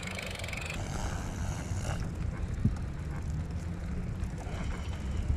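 Wind rumbling over the microphone during a bicycle ride, with one short knock about two and a half seconds in.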